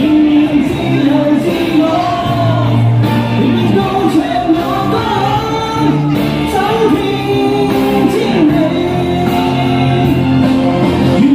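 A singer performing a pop song with instrumental accompaniment: a wavering sung melody over steady bass notes.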